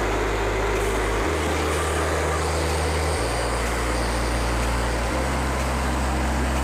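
Background music with a slow bass line that changes note about every two seconds, over the steady noise of a portable band sawmill running.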